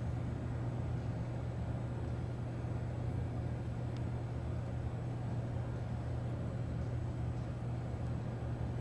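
A steady low droning hum with a faint hiss over it, unchanging throughout.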